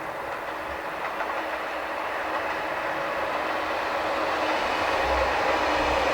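Passenger train approaching at low speed, growing steadily louder, with a faint steady hum over the rolling noise; low rhythmic thumps of the wheels begin about five seconds in.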